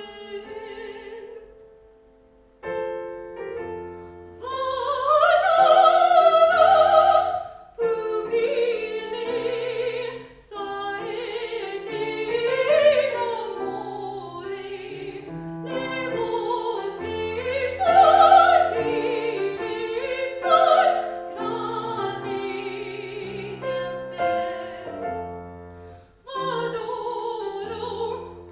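Classical operatic singing with wide vibrato, accompanied by piano, the voice phrasing in long held notes with brief breaths between phrases.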